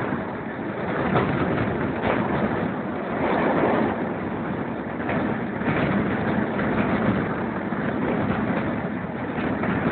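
Running noise of a steam-hauled train heard from an open carriage window: wheels on the rails and rushing air, with a few irregular knocks.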